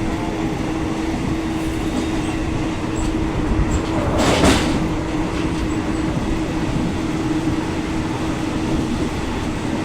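Running noise of a moving passenger train, heard from inside a non-air-conditioned coach: a steady rumble of the wheels on the track with a constant hum. A brief louder rush comes about four seconds in.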